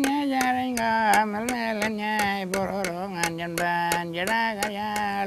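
A man singing a traditional song in an Aboriginal language: long held notes that waver slowly in pitch, over sharp clicks keeping a steady beat about three times a second.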